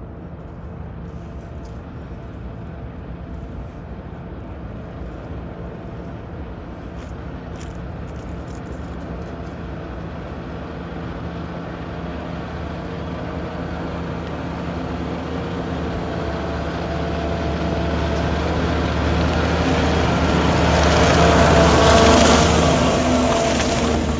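Bateman self-propelled crop sprayer driving straight towards the microphone and passing right over it: a steady engine hum that grows louder throughout, loudest about 22 seconds in, with a hiss rising over it as the machine comes close, then dropping away as it passes.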